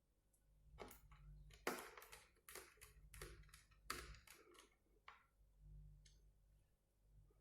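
Faint clicks and scrapes of small hardware being handled on a laptop being reassembled, a cluster of them between about one and five seconds in, the sharpest near two and four seconds.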